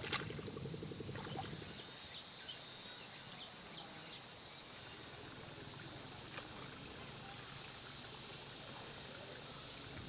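Rural paddy-field ambience: a steady, high-pitched insect chorus. A low, rhythmic engine putter stops about a second in.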